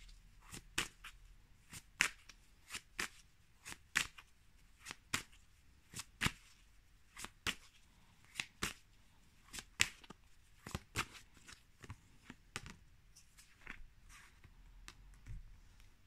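A tarot deck being shuffled in the hands: a steady run of short, sharp card clicks, about two or three a second.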